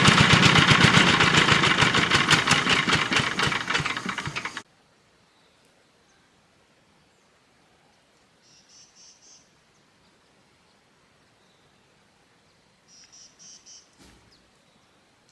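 A small engine or machine running with a fast rattling beat, cutting off abruptly about four and a half seconds in. Then two short, faint bursts of high insect chirping.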